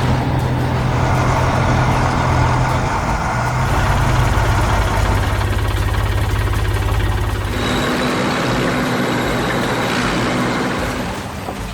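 Heavy vehicle's diesel engine running steadily with a low hum, the tone of the engine shifting about three and a half seconds in and again near eight seconds.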